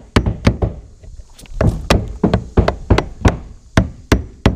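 Claw hammer knocking plastic locking clips onto the seam of a plastic rainwater tank: a quick run of sharp knocks, about three a second, with a short pause about a second in. Each strike drives a clip home to clamp the two tank halves together.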